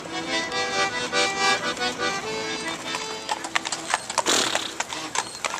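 Accordion playing a tune, giving way about three seconds in to a carriage horse's hooves clip-clopping on the asphalt. A short rush of noise comes about four seconds in.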